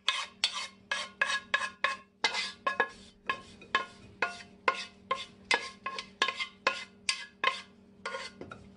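Wooden spatula scraping dried herbs out of a nonstick braiser into a glass bowl, in quick short strokes about three a second, with a faint steady hum underneath.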